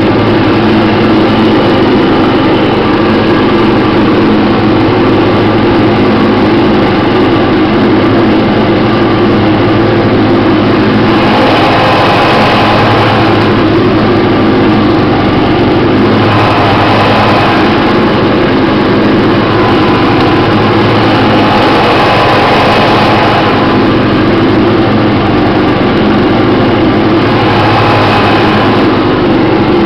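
A 1990 MTD lawn tractor's 12 hp Briggs & Stratton Industrial/Commercial engine running steadily at mowing speed with the deck blades cutting grass. A brighter whir in the sound swells every five seconds or so.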